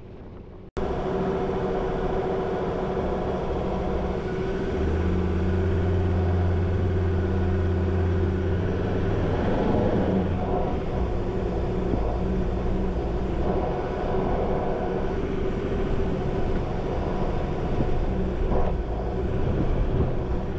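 Four-wheel drive's engine running steadily with tyre and road noise as it drives a steep, rocky gravel track. The sound starts abruptly just under a second in, and there is a single knock near the end.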